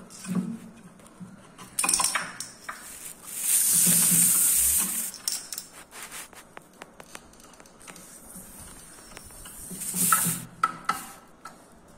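Small steel bearing batted by a kitten, clinking and rattling on a hard tile floor in scattered clicks, with bursts of ringing clinks about 2 s and 10 s in. A louder rushing scrape lasts about a second and a half near the middle.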